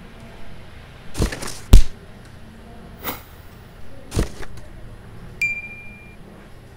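Animation sound effects: a run of short thuds and swishes in the first two-thirds, the loudest a heavy thud about two seconds in, then a single ding that rings briefly near the end.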